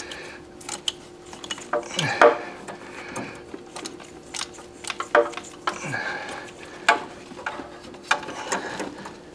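Ratchet wrench clicking in short, irregular bursts as a bolt is worked loose, with small metallic clinks and scrapes of the tool.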